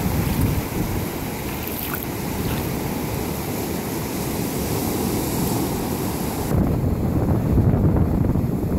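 Ocean surf breaking and washing over the shallows, with wind buffeting the microphone. A little over six seconds in, the high hiss drops away and the low wind rumble grows louder.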